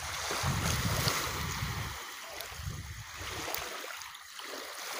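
Wind buffeting the microphone in two long gusts over a steady rushing hiss, with a few faint ticks.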